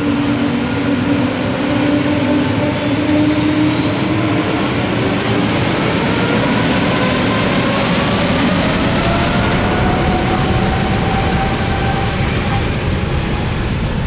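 Airbus A320neo's twin Pratt & Whitney PW1100G geared turbofan engines spooling up to takeoff thrust for the takeoff roll. A loud, steady roar, with whines that rise in pitch over several seconds.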